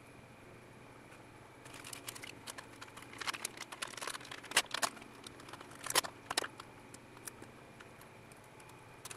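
Small plastic component bags crinkling and rustling as they are handled, in a run of short crackles and clicks from about two seconds in to six and a half, with a few more at the end.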